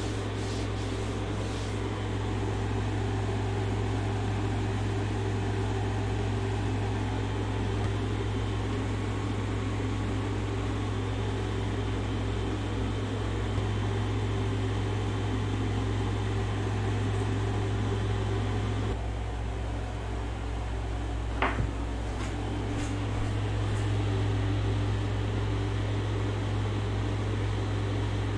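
Steady mechanical hum with a low drone, like a running fan, with a brief sharp squeak about three-quarters of the way through.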